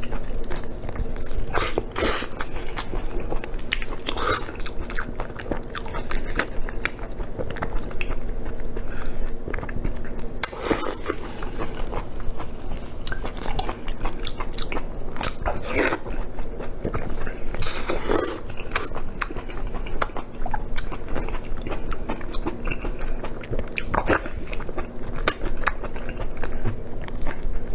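Close-miked chewing and biting of blood sausage: wet mouth sounds and smacks, with a firmer bite every few seconds.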